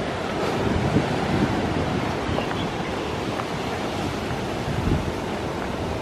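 Ocean surf breaking and washing over a rocky reef, a steady rushing noise, with wind buffeting the microphone in low gusts.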